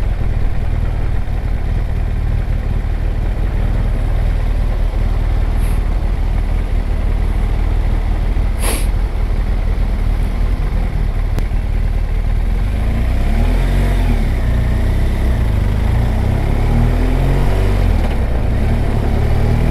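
Motorcycle engine and wind rumble heard from the rider's position while riding at town speed. In the second half the engine note rises and falls a few times with throttle and gear changes; a brief sharp hiss cuts in about 9 seconds in.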